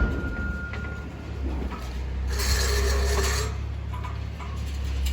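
A metal ceiling-grid main runner being cut: one noisy cutting burst, about a second long, a little over two seconds in. A steady low hum runs underneath.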